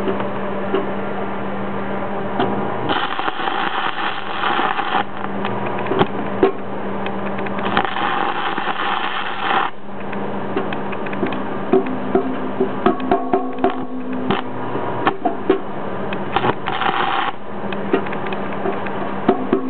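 A DC stick-welding arc crackling on aluminum in three short runs: the first two last about two seconds each, the last only half a second. Between runs there is a steady low hum and scattered sharp clicks as the aluminum rod is struck on the plate to restart the arc.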